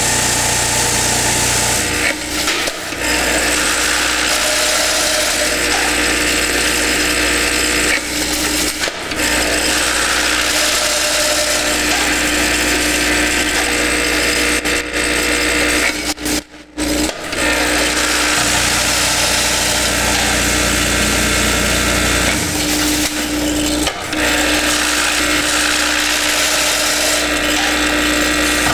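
Vibratory feeder bowl and vibrating tray running with a steady electric hum, with heaps of small metal parts rattling and clattering as they are shaken along toward the weigher. The sound drops out briefly about sixteen seconds in.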